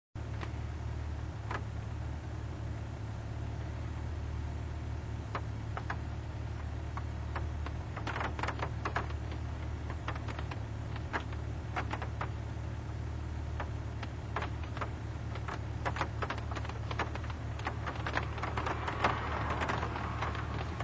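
Steady low hum inside a parked radar patrol car, with irregular light clicks and ticks. Road noise from passing traffic rises near the end.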